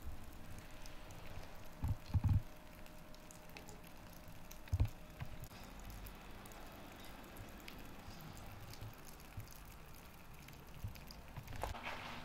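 Faint dripping and patter of melting snow, with a few short low thumps about two and five seconds in.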